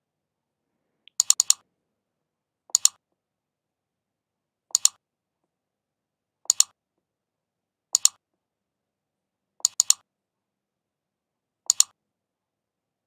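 Computer mouse button clicks, mostly quick double-clicks, in seven short groups about every two seconds.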